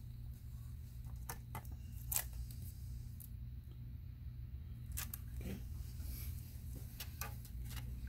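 Hands handling a 2.5-inch laptop hard drive and its black plastic drive bracket: scattered light clicks and rustles, the sharpest about two seconds in, over a steady low hum.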